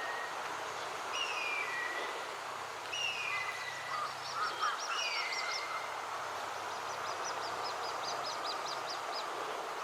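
Little grebe chicks' begging calls: several high, falling peeps, then two quick runs of short, very high notes, about eight a second, over a steady background hiss.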